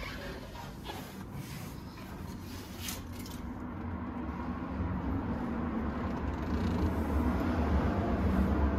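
Low rumble of a motor vehicle's engine in the background, swelling steadily louder, with a few light clicks in the first seconds.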